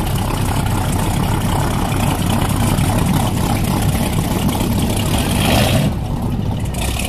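Inboard engine of an antique mahogany runabout running slowly at idle. A broad rush of noise swells over it and cuts off sharply about six seconds in.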